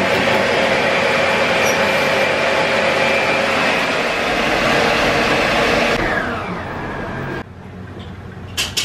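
Steady roar of a commercial gas range with its oven burners lit. The roar fades after about six seconds and drops away sharply to a quiet room, with a couple of small clicks near the end.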